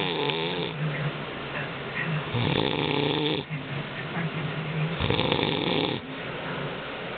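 A man snoring in his sleep: three snores in a slow, regular rhythm, about two and a half seconds apart.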